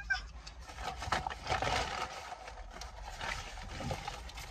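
Chewing and lip-smacking of people eating burgers close to the microphone, with scattered sharp mouth clicks.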